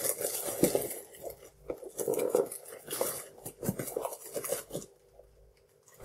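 Cardboard box and plastic-bagged CPU cooler heatsink being handled and pulled out of its packaging: irregular rustling, scraping and light knocks, falling quiet about a second before the end.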